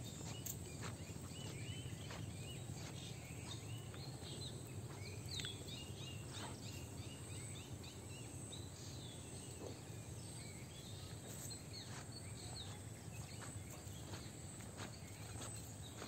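Rural outdoor ambience: many short bird chirps, busiest in the first half, over a steady low background hum, with a few scattered footsteps on a wet brick path.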